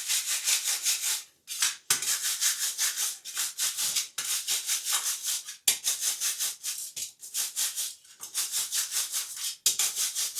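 Stiff scrub brush scrubbing the shower drain area in quick back-and-forth strokes, about five a second, with a few brief pauses.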